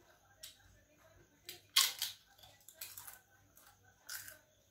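Crisp papad being bitten and chewed: a string of sharp crunches, the loudest a little under two seconds in.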